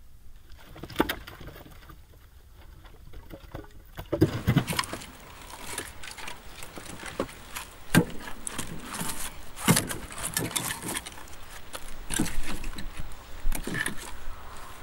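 Heavy wooden logs knocking and clattering against each other as they are lifted and stacked by hand on a woodpile. There are a few sharp knocks at first, then a denser run of knocks and scraping from about four seconds in.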